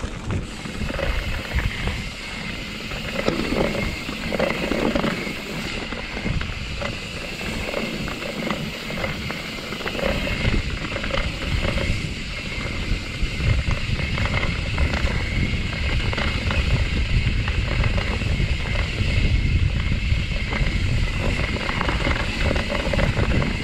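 Mountain bike descending a dirt forest trail: tyres rolling over dirt and roots, with dense rattling and clicking from the bike over the bumps. A low rumble grows louder about ten seconds in.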